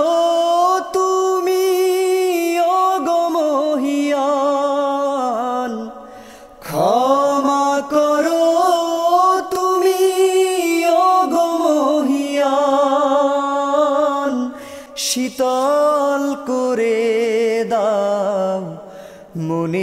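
A solo male voice sings a Bengali Islamic song in long, held notes with wavering melismatic ornaments, with a short break about six seconds in and another near the end. No instruments are heard.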